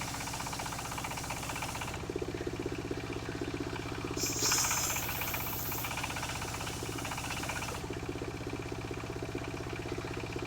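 Engine of a mobile circular sawmill running steadily with a fast, even firing pulse, with a brief louder, brighter swell about four and a half seconds in.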